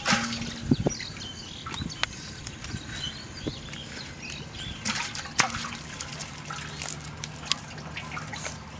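Live tilapia wetly flapping and slapping on grass and in a nylon cast net as they are picked out by hand, with scattered sharp clicks and knocks and wet dripping.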